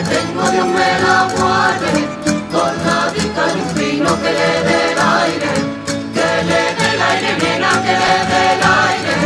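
Traditional Yecla folk music: a group of voices singing with instruments.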